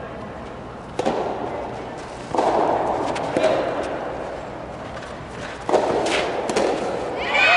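Soft tennis rubber ball struck by rackets in a rally: a sharp pop for the serve about a second in, then further hits around two and a half seconds and near six seconds, each ringing in the hall. Crowd noise swells after the hits.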